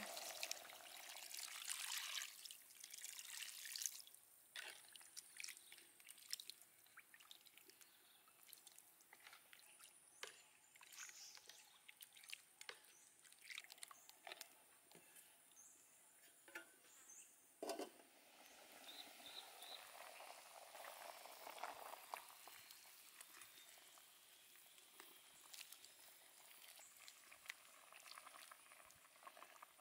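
Water pouring from a jug into a wok for about the first four seconds. After that come quieter trickles and drips as broth is ladled over the chicken, with occasional light clinks of the metal ladle against the steel wok.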